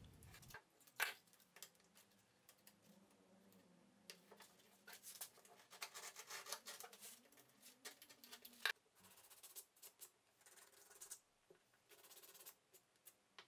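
Faint scratching and clicking of a utility knife blade cutting sandpaper stuck to a popsicle stick. Later come light rasping strokes as the finished stick file sands a small plywood part.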